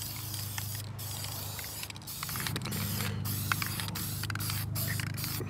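Aerosol spray paint can hissing in a run of short bursts with brief breaks between them as paint is sprayed onto the truck's fender.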